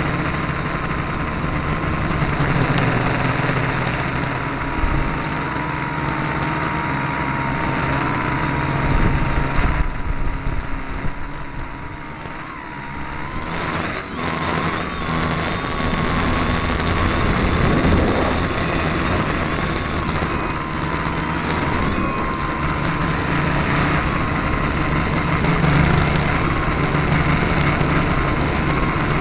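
Tricopter's three electric motors and propellers whirring steadily, close to the camera mounted on the frame, with a high whine that wavers in pitch over a low hum; the propellers are unbalanced. The sound drops for a few seconds about halfway through, then picks up again.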